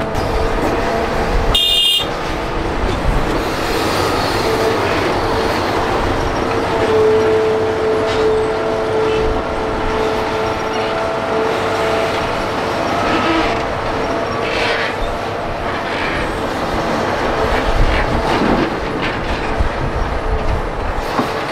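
Hitachi Zaxis 350H hydraulic excavator's diesel engine running under load with a steady whine, as it digs soil and swings it into a dump truck. Occasional clunks and rattles come in the second half, and the sound breaks off briefly about two seconds in.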